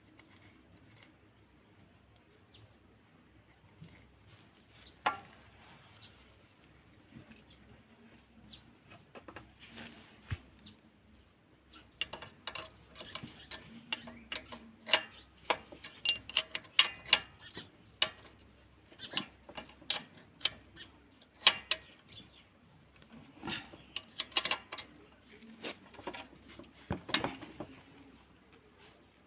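Metal hand tools and parts clinking and tapping against each other in irregular bursts of sharp clicks, sparse at first and busy through the second half.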